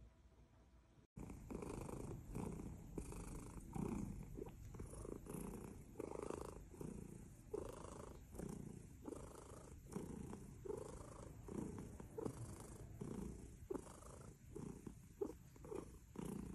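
Calico cat purring: a steady, rhythmic rumble that swells and fades about twice a second. It starts about a second in and quickens slightly near the end.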